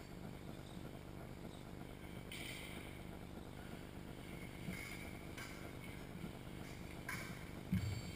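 Épée fencers' footwork on a wooden sports-hall floor over a steady hall hum: a brief squeak about two seconds in, a few faint clicks, and a dull thump near the end.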